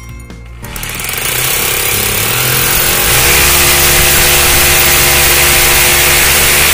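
Electric hammer drill boring into a masonry wall. It starts about a second in and runs steadily under load, its pitch stepping up a little around three seconds in.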